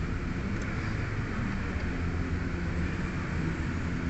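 Steady low rumble with a hiss over it, and a faint click just over half a second in.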